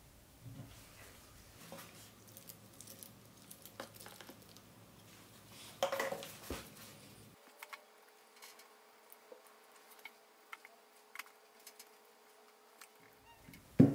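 Light taps and clicks from a steel hex key and a small plastic tub being handled in gun-bluing liquid. There is a brief louder clatter about six seconds in and a sharp knock just before the end.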